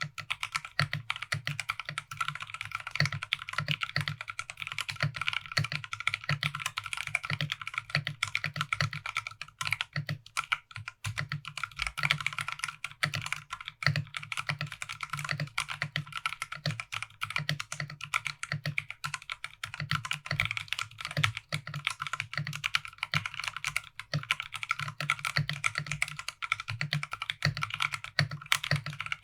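Steady, fast typing on a Drop ALT High-Profile mechanical keyboard with stock, unlubed Drop Halo Clear tactile switches in an aluminum plate and stock PBT keycaps: a dense run of irregular key clacks.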